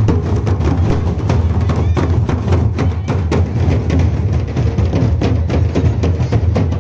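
Folk drumming: a large drum beaten with two sticks and a barrel drum struck with a stick, playing a fast, even rhythm of quick strokes over a heavy, steady low boom.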